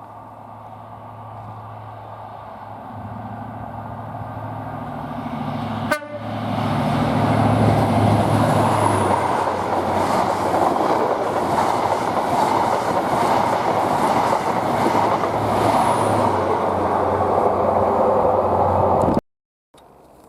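Diesel train approaching, its engine hum building, then passing close by at speed with a loud rumble and rush of wheels on the rails. There is a sharp click about six seconds in, and the sound cuts off abruptly near the end.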